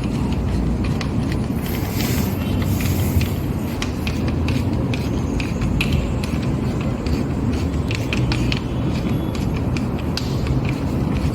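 Scattered light metallic clicks and clinks of hand tools and engine parts being handled during timing assembly, over a steady low background rumble.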